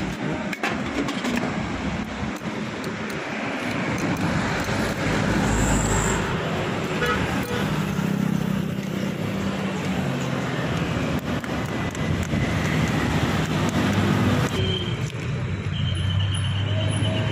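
Road traffic going past: a steady rumble of vehicle engines that swells as one vehicle passes about eight seconds in, with a few light clicks.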